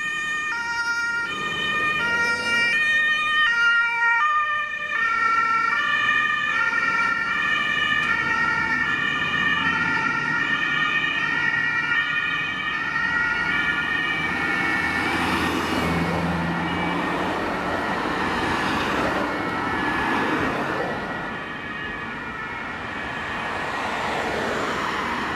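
Two-tone German emergency sirens (Martinshorn) of fire engines on a run, alternating high and low notes about once a second. From about five seconds in, several sirens sound together out of step. After about fifteen seconds the notes blur into a sweeping wash mixed with engine and road noise.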